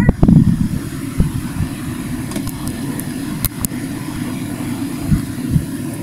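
Black & Decker portable air conditioner running with a steady low hum, with a few faint ticks in the middle.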